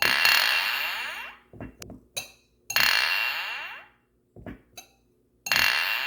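Glass clinking: three bright, ringing clinks about two and a half seconds apart, each fading over about a second, with softer light taps and knocks between them.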